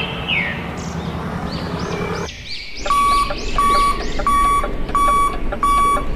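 Truck reversing beeper: a series of evenly spaced electronic beeps, about one and a half a second, starting a little under three seconds in. Birds chirp throughout.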